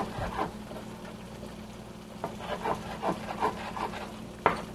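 Knife cutting feta cheese into small pieces: a run of light taps about every half second, starting about two seconds in, with a sharper knock near the end. A low steady hum sits underneath.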